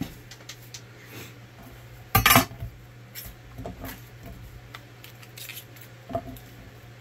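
Celery stalks being snapped and pulled apart by hand on a wooden cutting board. A loud crisp crack comes about two seconds in, followed by softer crunches and knocks as stalks break and are laid on the board.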